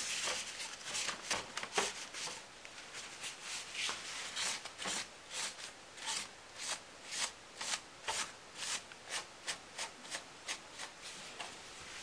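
Paper tissue rubbed back and forth over the rear panel of a Dell Dimension 4550 desktop case, wiping off dust: a quick run of dry swishing strokes, about two to three a second.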